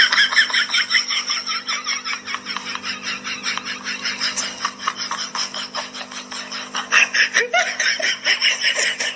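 A person laughing hard without a break, several short pulses of laughter a second, over a low steady hum.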